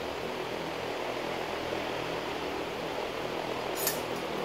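Steady roaring hiss of a propane melting furnace's burner, with a brief sharp metallic scrape or clink about four seconds in.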